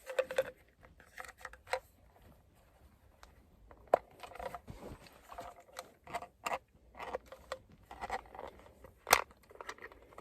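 Irregular sharp clicks and short scrapes of hard plastic as a stubborn interior light cover is pried at, with a louder snap about four seconds in and again near the end.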